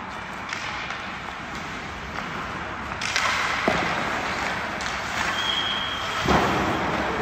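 Hockey skates scraping and carving on rink ice, with sharp clacks of sticks and pucks several times, the loudest about six seconds in. A brief high squeal sounds a little after five seconds.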